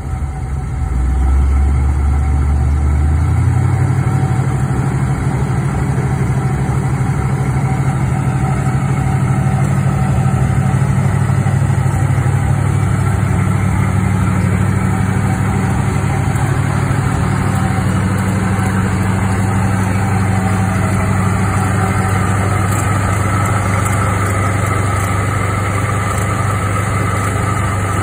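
1979 Corvette's L82 350 V8 idling through its dual exhaust, a steady low engine note. It gets louder about a second in, steps up slightly in pitch about three seconds in, and then holds even.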